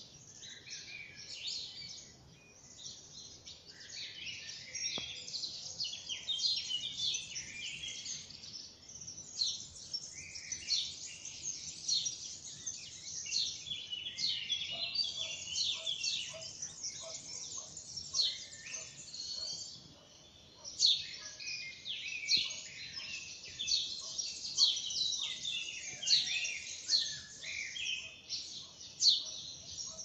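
Morning birdsong: many small birds chirping and singing at once, a dense, unbroken tangle of high chirps and trills. A lower, repeated call joins about halfway through.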